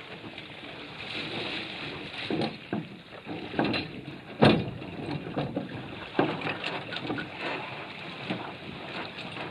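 Water sloshing against a Prindle 16 catamaran's hull, with several knocks and thumps carried through the hull as the crew handle the boat and climb aboard; the loudest thump comes about four and a half seconds in.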